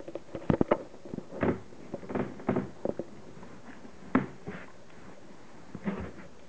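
Adult Belgian Malinois nosing a nine-day-old puppy: an irregular run of short sniffs and snuffles with small squeaks and a few soft knocks.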